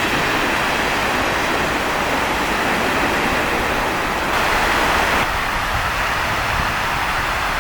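Steady rushing of sea surf, a little louder for about a second in the middle.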